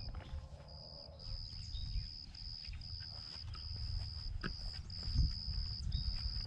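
An insect trilling on one high, steady pitch, in stretches a fraction of a second to a second long broken by short gaps, over a low rumble.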